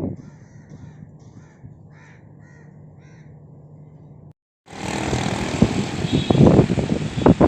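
Crows cawing several times over a faint steady hum, then, after a brief break, gusty wind buffeting the microphone loudly.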